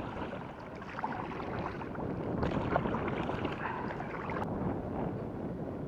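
Water sloshing and splashing around a kayak, with a few light knocks.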